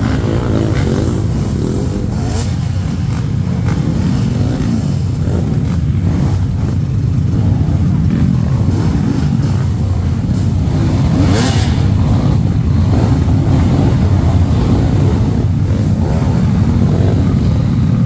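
Dirt bike engine running, its pitch rising and falling with the throttle. Two brief sharp knocks, about two seconds in and again near the middle.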